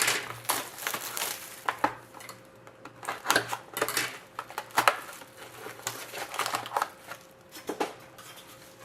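Plastic wrapping on a sealed box of hockey cards crinkling and rustling as it is handled and torn open, with scattered taps and knocks of cardboard.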